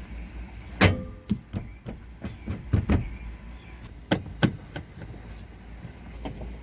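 A series of sharp knocks and clicks, about nine in all: the loudest about a second in, a quick cluster around three seconds, and two more just after four seconds, over a low steady hum.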